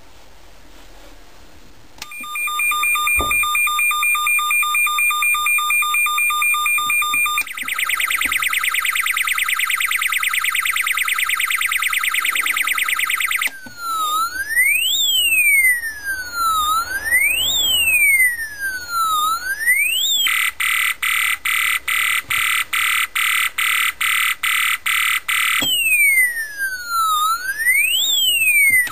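Electronic multi-tone siren (um 3561) sounding through a small horn speaker and switching between tones. About two seconds in a fast-pulsing steady tone starts, then a higher buzzing tone, then a wail sweeping up and down about every two seconds, then a rapid even pulsing, and the sweeping wail returns near the end.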